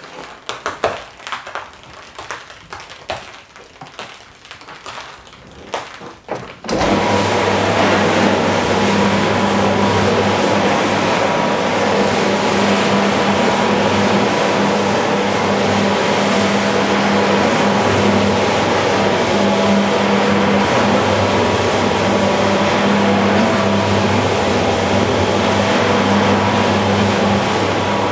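Scattered light taps and knocks for the first several seconds, then a rotary floor scrubber switches on suddenly about seven seconds in. It runs loud and steady with a constant hum, its spinning brush scrubbing a shampoo-soaked rug.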